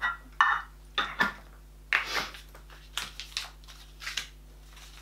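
Handling noise: a run of short, irregular rustles and knocks as dog-food tins and box packaging are picked up and moved about on the floor.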